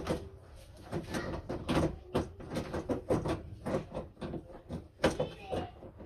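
Irregular metallic clicks, knocks and rattles of a Hyundai Starex sliding-door latch and handle mechanism being worked by hand inside the open door panel.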